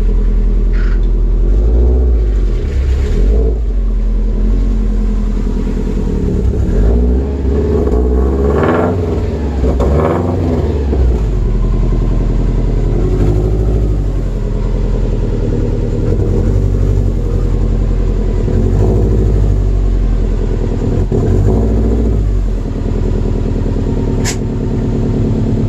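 Turbocharged truck engine running, revved up and down several times between about seven and eleven seconds in. The owner says it still runs fine despite debris in its oil.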